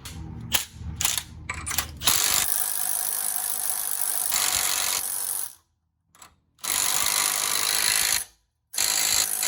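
Impact gun run in three bursts, the first about three and a half seconds long and the next two shorter, each starting and stopping abruptly. Before them come a few light metallic clicks.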